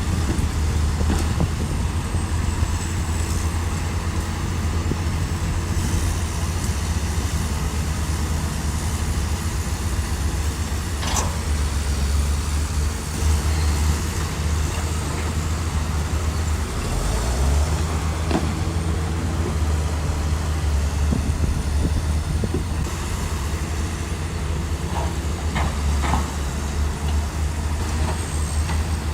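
Shantui bulldozer's diesel engine running steadily under load, its note rising a little about two-thirds of the way through, with a few sharp metallic knocks.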